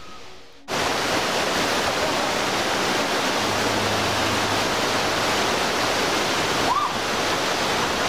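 Mountain stream rushing over boulders and stones, a loud, steady rush of water that cuts in suddenly under a second in.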